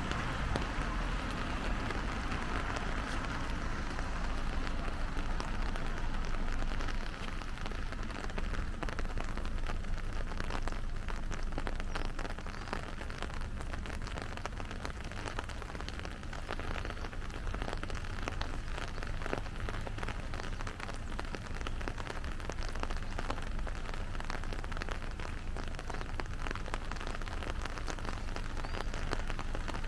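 Steady rain falling on street surfaces, with many separate drops ticking close by, a little louder for the first several seconds.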